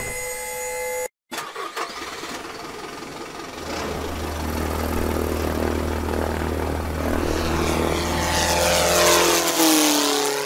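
A small propeller-plane engine sound effect: a short mechanical whir first, then the engine starting and settling into a steady drone, its pitch sweeping and dropping in the last few seconds before it fades out.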